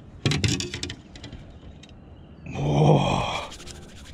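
A man's voiced groan lasting about a second, starting a little past halfway, preceded by a quick cluster of clicking knocks in the first second.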